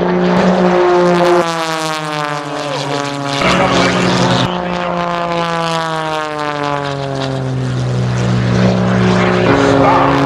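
Aerobatic propeller airplane's engine and propeller running hard, its pitch falling in two long slides as the plane manoeuvres and passes.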